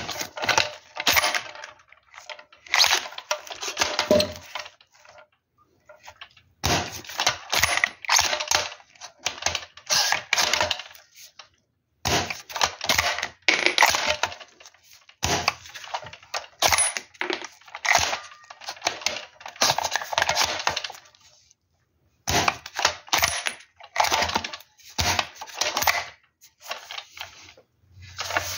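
Hard plastic clicking and rattling from a toy Lee-Enfield No.1 Mk III rifle's bolt action being handled and worked. It comes in five bursts of rapid clicks, each a few seconds long, with brief pauses between.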